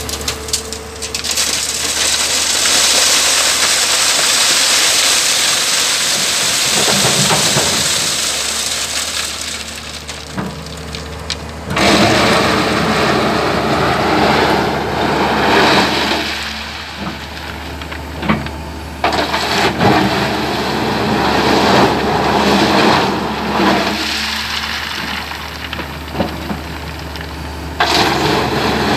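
LiuGong crawler excavator's engine running under load while the bucket works river stones and gravel: a long rushing clatter of stones for several seconds, then repeated bursts of rocks scraping and rattling.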